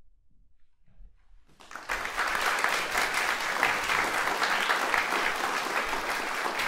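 A near-silent pause, then an audience breaks into applause about a second and a half in and keeps clapping steadily.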